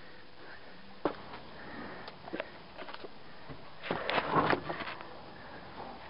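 Lead sheathing being peeled by hand off an old cable: a sharp knock about a second in, a few light clicks, then a louder crackling scrape about four seconds in as the soft metal is bent back.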